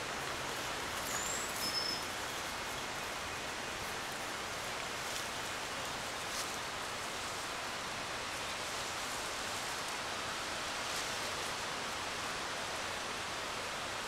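Steady rustling hiss of leaves in a breeze, with two short high bird chirps a little over a second in.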